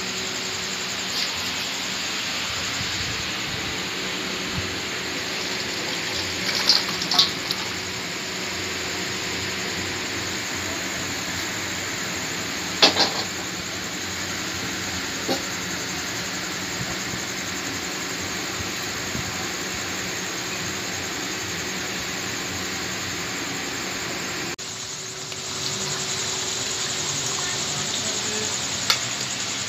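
A pot of chicken curry cooking on a gas stove gives a steady hiss, broken by a few sharp clinks of metal utensils against the pot.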